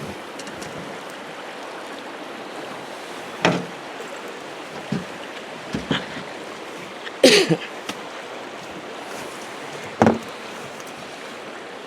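A river flowing with a steady rush. A few brief, louder noises break through it about three and a half, seven and ten seconds in.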